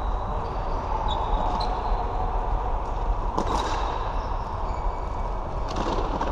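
Floorball play on an indoor court: short high squeaks of shoes on the floor, and two sharp knocks about halfway through and near the end, over a steady hall din.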